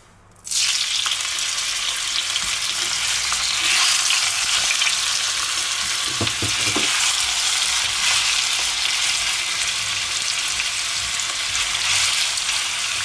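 Gyros meat strips dropped into hot oil in a wok, sizzling as they fry. The sizzle starts suddenly about half a second in and stays steady as more strips are added.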